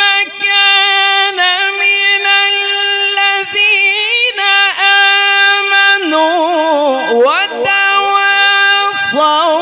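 A man's voice in melodic Quran recitation (tilawat), drawn out in long, held, ornamented notes. The pitch dips lower about six seconds in and climbs back near the end.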